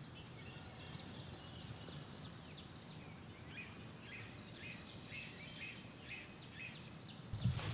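Faint songbird chirps, a quick run of short repeated notes in the middle, over a steady low outdoor background; a louder rustle starts near the end.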